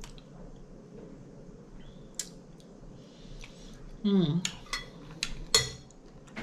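A metal fork clinking against a plate: a single click about two seconds in, then a quick run of clicks near the end, the last one the loudest.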